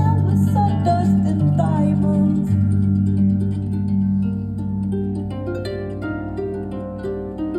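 Pedal harp playing: low notes ringing under a melody, breaking into a quick run of short plucked notes about five seconds in.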